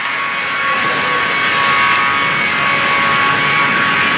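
Multi-blade rip saw running under load as a board is fed through its blades: a steady whine over the even rush of the cut.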